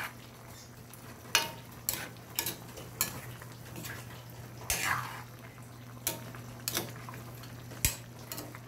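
A metal ladle stirring a chunky meat-and-vegetable stew in a metal wok, clinking and scraping against the pan in irregular strokes about every half second to a second.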